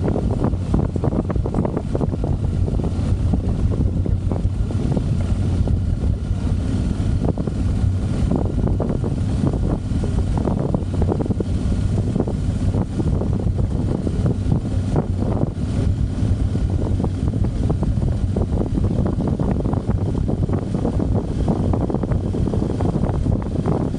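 Motorcycle engine running at a steady cruising speed under heavy wind noise on the microphone.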